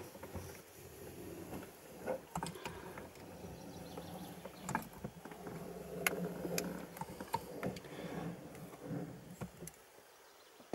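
Hand caulking gun clicking and creaking irregularly as its trigger is squeezed to push construction adhesive out of a cartridge, with small handling knocks. It goes quiet near the end.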